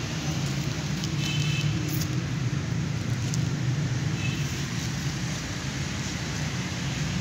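A steady low mechanical drone, like a motor running, with a few faint clicks and high squeaks over it about a second in and again near the middle.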